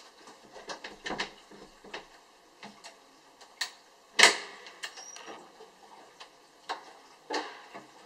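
Clicks and knocks from a door's lever handle and latch being worked, with one sharp loud clack about four seconds in.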